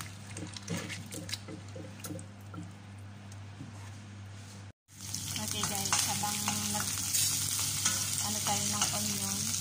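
Wet bitter gourd slices being squeezed and stirred by hand in a bowl of water, followed after a brief break about halfway through by chopped garlic and onion sizzling in hot oil in a frying pan, stirred with a wooden spatula. The sizzling is louder than the water handling and carries a steady hiss.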